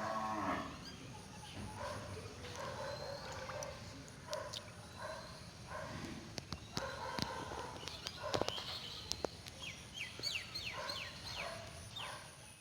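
Faint outdoor ambience with birds calling, including a quick series of short downward chirps near the end, and a few faint clicks.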